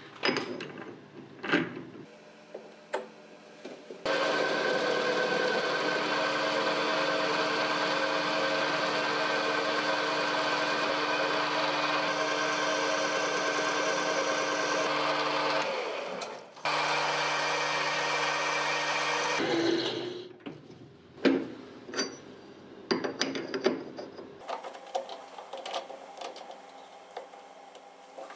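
Metal lathe running steadily while turning a metal workpiece, with a brief break near the middle. Before and after the run there are metal clinks and knocks as the workpiece is handled in the four-jaw chuck.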